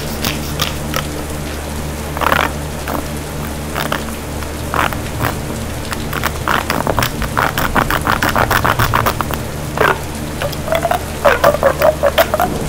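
Siren Head creature sound effect: croaking, rattling calls over a low steady drone, with a fast clicking rattle a few seconds in and louder pulsed croaks near the end.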